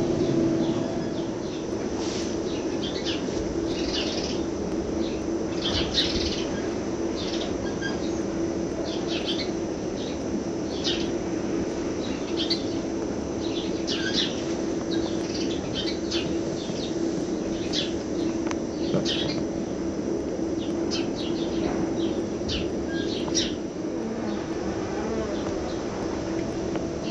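Small birds chirping in short, scattered calls, over a steady hum.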